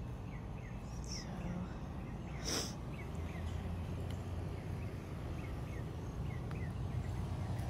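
A bird repeats short, falling chirps two or three times a second over a steady low outdoor rumble, with one brief rustle about two and a half seconds in.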